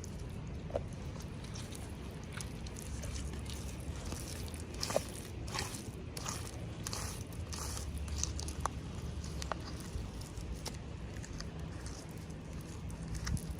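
Hands unboxing small toys: plastic packaging crinkling and rustling, with scattered small clicks and taps over a low steady hum.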